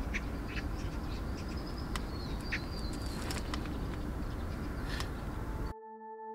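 Birds chirping over a steady low outdoor rumble, with a few sharp clicks. About five and a half seconds in it cuts abruptly to soft ambient music with long held tones.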